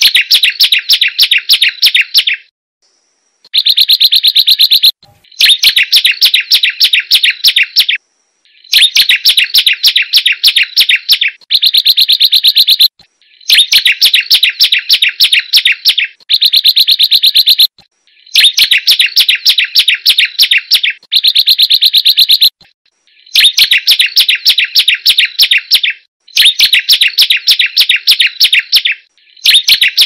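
Prenjak gunung (a prinia) singing: rapid runs of high chirps, about eight a second, in phrases of two to three seconds separated by short pauses, each phrase starting and stopping abruptly.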